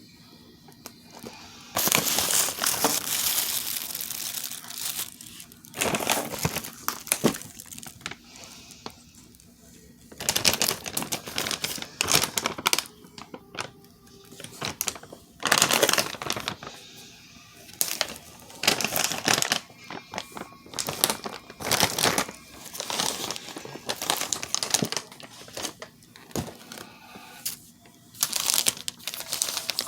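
Packaging crinkling and rustling as it is handled, in irregular bursts lasting from a moment to a few seconds, with quieter gaps between them.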